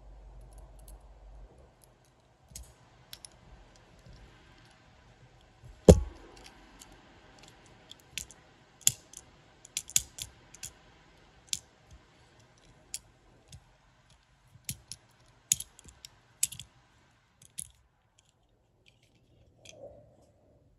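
Small sharp clicks and taps of an M2 Machines diecast Square Body pickup's base being handled and pressed onto its body, with one louder knock about six seconds in and a quick run of clicks after it.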